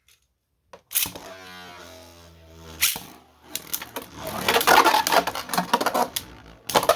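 Beyblade spinning tops launched into a plastic stadium about a second in, with a brief whirring tone, then a fast, loud clatter of hard plastic tops colliding and grinding against each other over the last few seconds.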